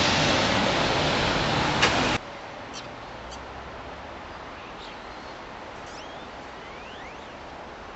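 Loud, steady hiss of outdoor street noise with a single click, cut off abruptly about two seconds in. Then a much quieter background in which small birds perched on power lines give a few faint, short, high chirps, some rising and some falling.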